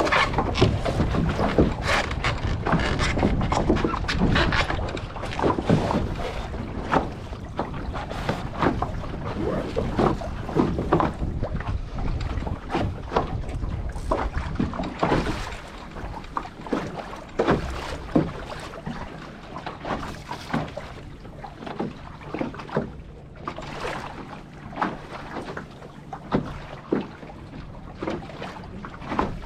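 Water splashing and slapping against a small sailing boat's hull, with wind on the microphone; the splashing eases off about halfway, when a faint low steady hum comes in.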